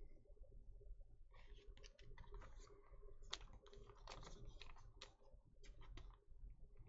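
Faint, irregular clicking and scraping of glossy Donruss Optic football cards as they are flipped through by hand, each card slid off the front of the stack and tucked behind; the clicks start about a second in.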